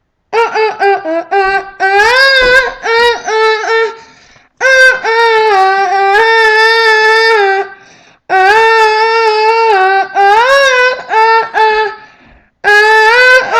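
A high human voice singing an emergency alert alarm tone, starting with short choppy notes and then holding long steady tones that step and glide between a few pitches, in about four phrases with brief breaks between them.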